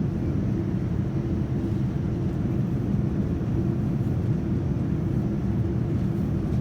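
Steady low rumble of the Boeing 787-9's cabin noise in flight: engine and airflow noise heard inside the passenger cabin, even and unchanging.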